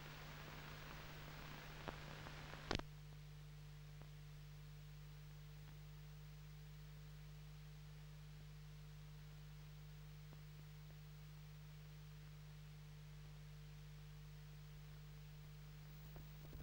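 Near silence: a steady low electrical hum with a faint steady tone above it, and light hiss that drops away about three seconds in, just after a sharp click.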